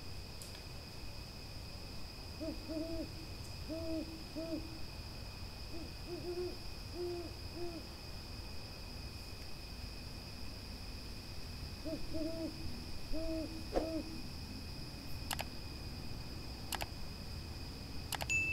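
Owl hooting in several short runs of two or three low hoots over a steady high trill of crickets. Near the end come three sharp clicks about a second and a half apart.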